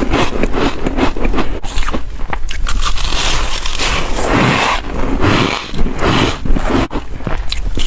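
Close-miked biting and chewing of crispy shaved ice, a dense run of sharp crunches and crackles.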